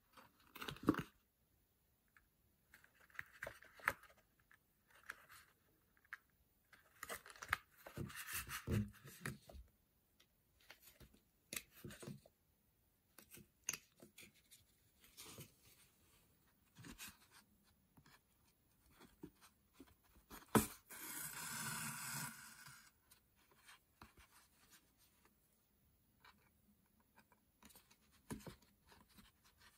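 Needle and twine being drawn through the punched holes of a paper card: faint, irregular short rasps and rustles of thread on card, with one longer pull about two-thirds of the way through.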